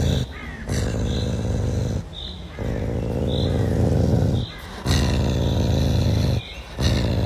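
Caracal giving a low, rumbling growl in long stretches of about a second and a half to two seconds, with short breaks between them.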